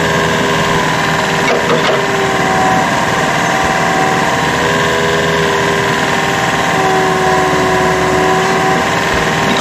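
Small Komatsu excavator's diesel engine running steadily, with a higher whine that comes in twice for about two seconds each time.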